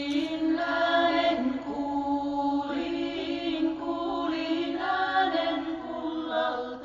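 Background music: a chanted vocal melody over a steady held drone.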